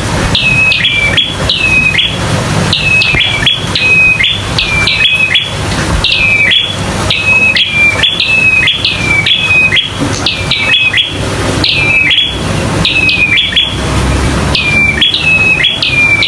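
Prinia (prenjak) calling rapidly and loudly, a long run of sharp chirping notes in quick clusters of two or three, each flicking up and then dropping, without a break. This is the agitated territorial calling that keepers call 'tarung'. A steady low hum runs underneath.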